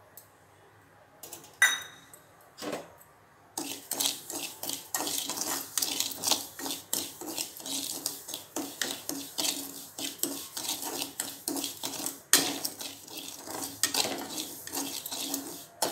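Metal spatula scraping and stirring dry semolina around a metal kadai, many quick scrapes a second, as the rava is dry-roasted. A couple of short metal clinks come before the stirring starts, and one sharper knock comes near the end.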